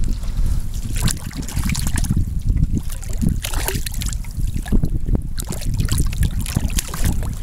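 Water splashing in short, irregular strokes as a hooked spotted seatrout thrashes at the surface beside the boat and is grabbed with a lip grip, over a steady low rumble.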